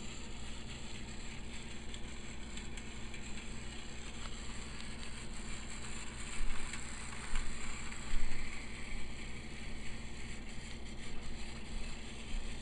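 Battery-powered Tomy Plarail Thomas toy train running around plastic track: a steady small-motor and gear whir with wheels rattling on the rails, with a few louder knocks between about six and eight seconds in.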